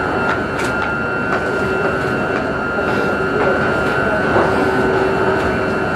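Steady hum and hiss of a Paris Métro MP05 driverless train's onboard equipment while it stands in the tunnel, with a few faint clicks.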